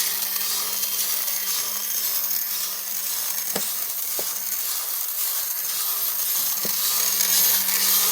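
Small electric motor and plastic gear train of a Colonel Hap Hazard toy running steadily on 3 volts, a whirring buzz with a low hum. A few sharp clicks come midway, and the motor stops near the end.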